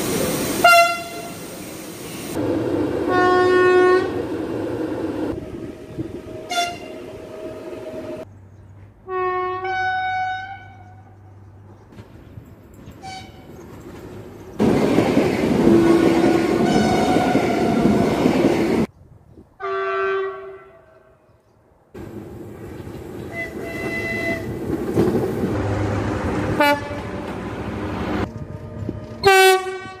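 Train horns on Polish electric locomotives and multiple units giving the Rp1 'attention' (baczność) signal, one after another about ten times, each a chord of steady tones lasting about a second, over the rumble of passing trains.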